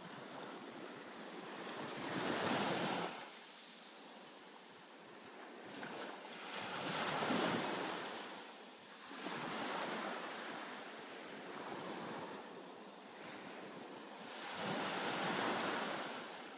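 Ocean surf: waves breaking and washing on a rocky shore, swelling and fading in slow surges every few seconds, loudest about two and a half, seven and a half and fifteen seconds in.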